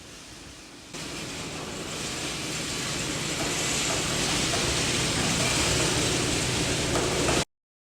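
Industrial heat-treating line machinery running: a steady rushing noise with a low hum underneath, growing gradually louder and cutting off abruptly near the end.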